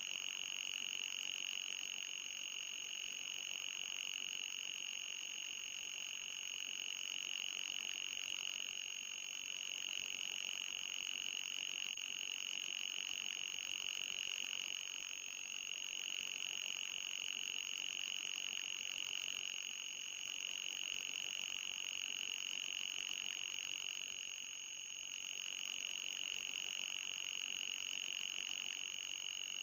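Synthetic electronic mosquito-repellent tone: a steady high-pitched whine with a fainter, even higher tone above it. It wavers and dips briefly every five seconds or so.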